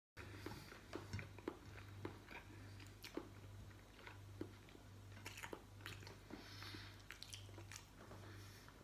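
Faint chewing of a mouthful of roast chicken: irregular wet smacks and clicks, over a low steady hum.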